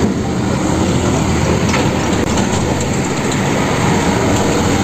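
Road traffic: diesel fuel tanker trucks driving past, engines running with tyre noise, and a motor scooter among them.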